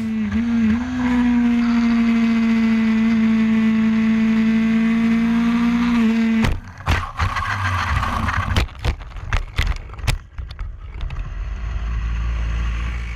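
Racing motorcycle engine, heard from on board, held at steady high revs; it cuts off abruptly about six seconds in as the bike crashes. A run of sharp knocks and scrapes follows as the bike tumbles and slides off the track, and the sound ends in a low rumble.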